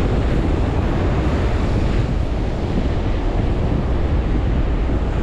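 Wind buffeting an action camera's microphone: a loud, steady rumbling hiss, heaviest in the low end.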